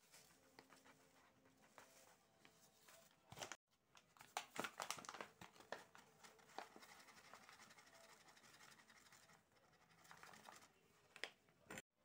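Faint rustling and scratching of flour being poured from a paper bag into a plastic measuring cup, with a few light clicks, busiest a few seconds in.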